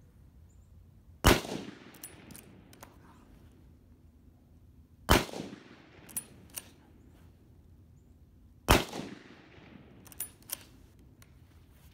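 Three shots from an M1917 Enfield bolt-action rifle in .30-06, about three and a half seconds apart, each trailing off in an echo. Between shots come a couple of sharp clacks as the bolt is worked to chamber the next round.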